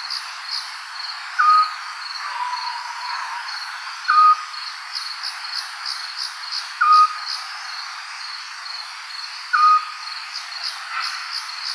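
Night-time nature ambience: a short, sharp bird call repeats four times, about every two and a half to three seconds, over continuous high-pitched pulsing cricket chirps.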